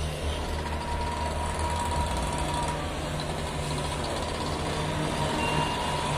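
A heavy engine running steadily with a low drone, with a thin, steady high whine above it.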